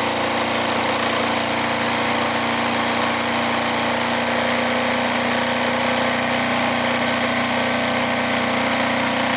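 Mamod Minor 2 toy steam engine, fitted with Teflon crankshaft bushes and a heavy bronze flywheel, running flat out on a speed test: a steady, even whir with a constant hiss, holding the same pitch throughout.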